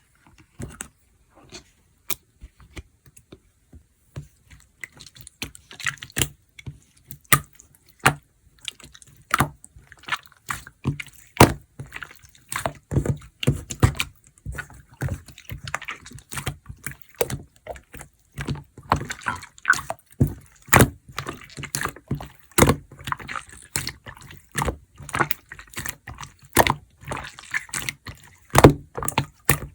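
Mixed slime being squished and pressed by hand: irregular sharp wet pops and clicks, sparse for the first few seconds, then coming thick and fast.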